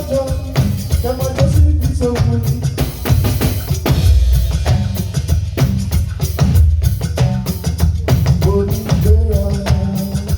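Live band music: rapid, dense percussion strokes and drums over a heavy bass line, with short melodic phrases near the start and again near the end.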